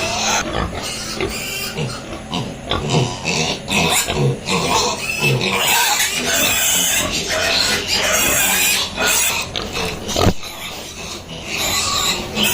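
Piglets grunting and snuffling at close range, a dense run of short low grunts over constant rustling, with a sharp knock about ten seconds in.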